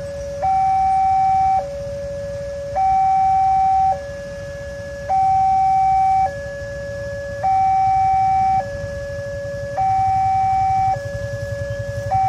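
Railway level-crossing alarm sounding from the horn loudspeaker on the crossing post: a two-tone signal switching between a higher and a lower note, each held a little over a second, warning that the crossing is closed for an approaching train. A low engine rumble comes in near the end.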